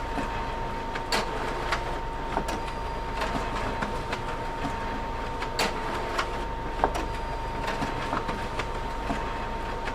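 Photocopier running: a steady whir with a constant hum and scattered irregular clicks and ticks.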